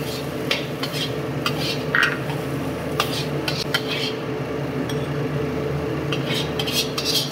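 Metal spatula scraping and clinking against a wok while stir-frying onion and scrambled egg, in irregular strokes, over a steady low hum. Near the end the spatula pushes the food into a bowl with a quick run of scrapes.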